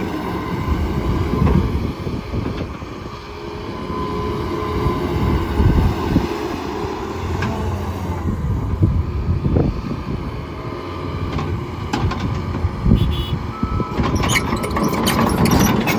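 John Deere 210G LC excavator working: its diesel engine and hydraulics run, the level swelling and easing as the machine moves. Several sharp knocks come near the end.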